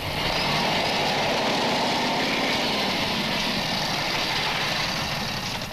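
Motorcycle engine idling steadily with a fast even pulse, quietening near the end.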